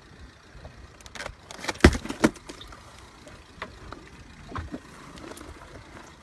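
Knocks and thumps as a large grouper is pushed and turned on a small boat's deck, the heaviest thump about two seconds in, over a low rumble of wind and water.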